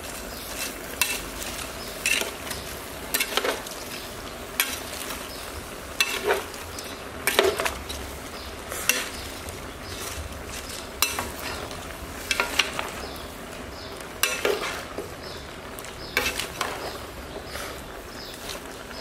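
A metal ladle scraping and clanking against a large metal pot as cabbage, carrot and meat are stir-fried, in strokes every second or two, often in quick pairs, over a steady sizzle.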